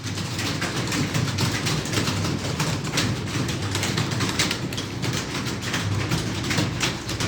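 Many computer keyboards typed on at once: a dense, continuous clatter of keystrokes from a roomful of people typing fast.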